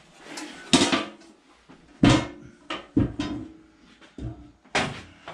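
A Delta 14-inch bandsaw's metal wheel cover being handled and set down: about four sharp clunks and knocks with small clatters between them.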